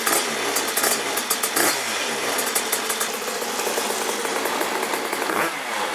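Simson 50 cc two-stroke moped engine of a Krause Duo running at idle, its pitch dipping and rising a couple of times. It runs with its exhaust freshly cleared of a rag that had been blocking it.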